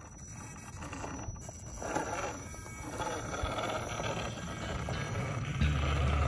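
Background music fading in, with bell-like tones and a steady bass line coming in near the end.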